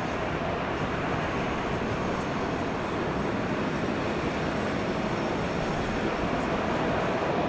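Steady rumble of a moving train, running evenly with no change in speed.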